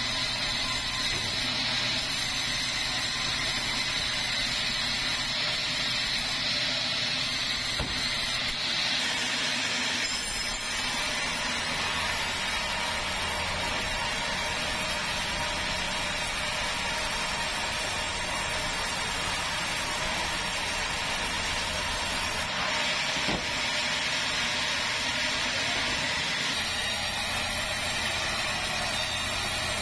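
Sawmill band saw running and its blade sawing lengthwise through a squared keruing log, over a steady engine hum. The high cutting whine is strongest early on and again about 23 seconds in.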